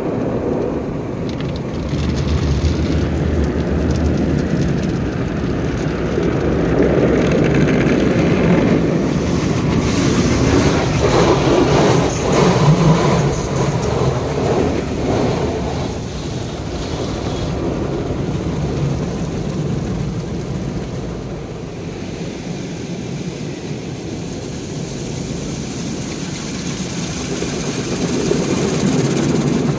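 Automatic tunnel car wash heard from inside the car: water jets and foam spraying against the windshield and body over the steady rumble of the wash machinery, louder for a stretch in the middle.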